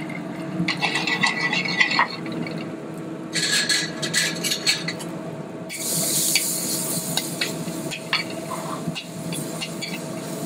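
A metal spoon stirring and scraping in a skillet of bacon bits frying in hot fat, with clusters of clinks against the pan and sizzling that swells about halfway through. A steady hum runs underneath.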